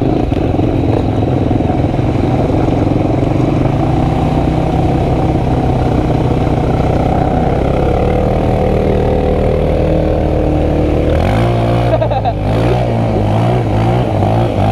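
Motorcycle engine running steadily under way. About eleven seconds in its pitch drops, then it revs up and down in a few quick glides.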